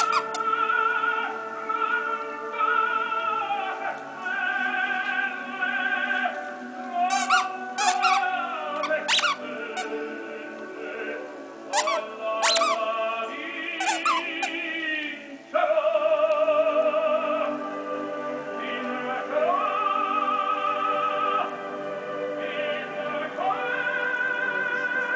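Plush monkey squeaky toy squeaking sharply several times in the first half as a beagle chews it, over a recording of an operatic tenor singing with orchestra.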